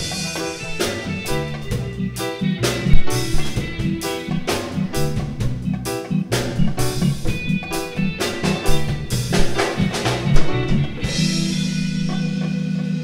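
Live band playing a rhythmic instrumental passage on electric guitar, electric bass, drum kit and hand drums, closing on a held chord about eleven seconds in.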